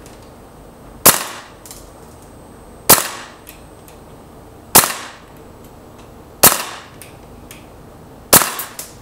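VFC KAC SR-25 gas blowback airsoft rifle firing single shots on green gas with its suppressor off: five sharp cracks of the blowback action, about one every two seconds, each followed a moment later by a fainter click.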